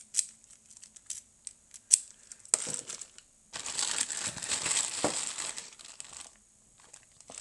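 A few light clicks and taps, then a plastic bag being handled, crinkling and rustling for about three seconds from roughly two and a half seconds in.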